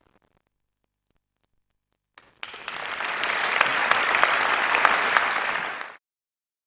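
Audience applauding, starting about two seconds in and cutting off suddenly near the end.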